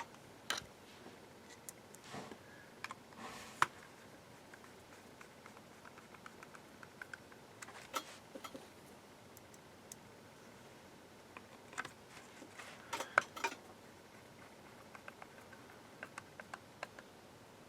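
Scattered small clicks and taps of plastic parts and small components being handled during reassembly of a label maker, with a few clusters of quick knocks.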